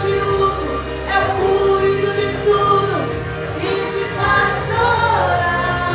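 Christian gospel song with a singing voice over sustained instrumental backing.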